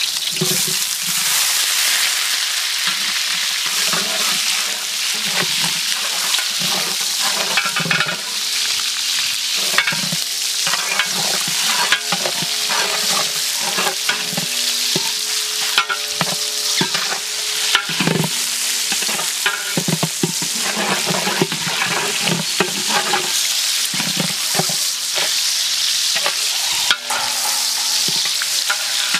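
Small red onions and cherry tomatoes sizzling in hot oil in a large metal pot, with a long-handled metal ladle scraping and knocking against the pot as they are stirred.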